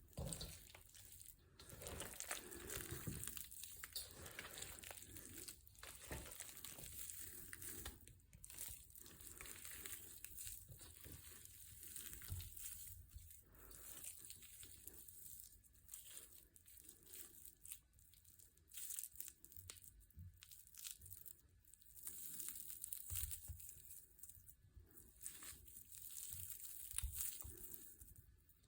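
Quiet, irregular crunching and crinkling of something being crushed, in uneven clusters with short pauses.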